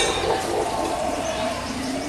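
Tropical forest ambience with birds calling, one short sharp call right at the start over a steady background hum.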